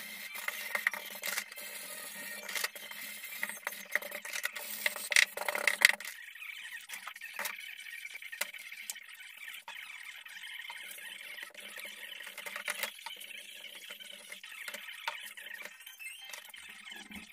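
Handling noise on a workbench: a run of knocks, clicks and scraping as a wooden board and tools are picked up and set down. It is busiest and loudest in the first six seconds and sparser after that.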